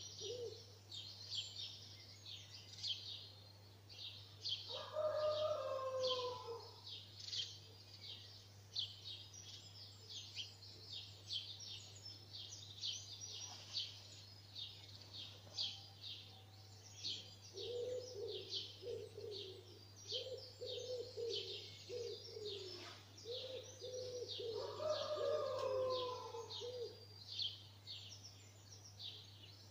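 Dawn chorus: many small songbirds chirping and trilling without pause. A pigeon coos in low, evenly repeated notes, once briefly about five seconds in and again in a longer run during the second half.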